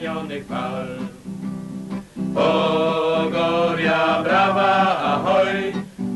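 A song with acoustic guitar, singing voices coming in louder about two seconds in.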